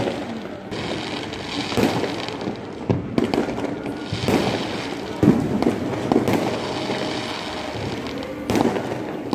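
Firecrackers and fireworks going off all around: a continuous popping crackle with several sharp bangs a second or so apart.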